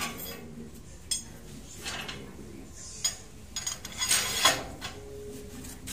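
Steel rebar being bent into a stirrup by hand with a rebar bending bar: scattered sharp metal clinks and scrapes of steel on steel, with the loudest cluster of rattling clinks about four seconds in.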